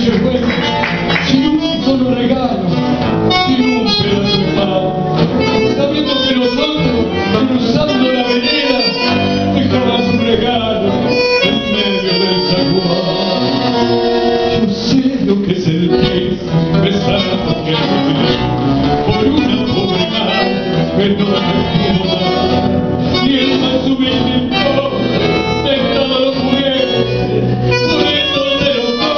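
A live tango: a man singing through a microphone and PA, accompanied by bandoneón and nylon-string guitar.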